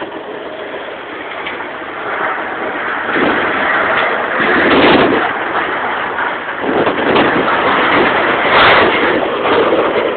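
Tornado wind blowing hard against a phone microphone, a loud rushing noise that surges in gusts from about three seconds in, with a few sharp knocks.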